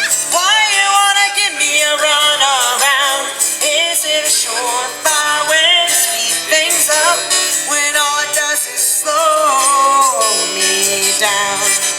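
Band music: an instrumental break in a pop-rock song, with a lead melody bending in pitch over guitar and a steady drum beat.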